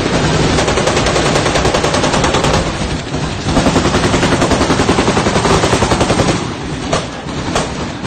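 Automatic gunfire in long rapid bursts, about eight shots a second, loud and close. The firing eases briefly about three seconds in, then resumes, and near the end it breaks into a couple of separate shots.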